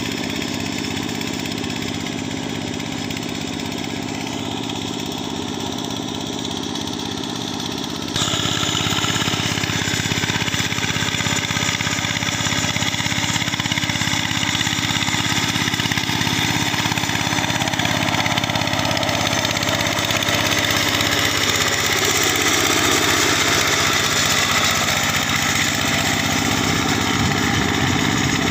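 Engine of a walk-behind two-wheel hand tractor running steadily under load as it drags a levelling board through flooded rice paddy mud. About eight seconds in it suddenly becomes louder and brighter.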